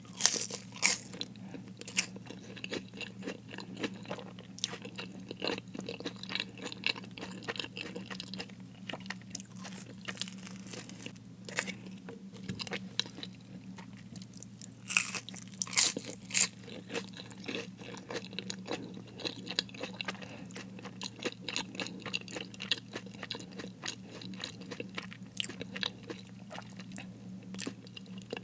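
Close-miked chewing and crunching of crispy fried food, with irregular crackles throughout and a few louder crunchy bites near the start and around the middle.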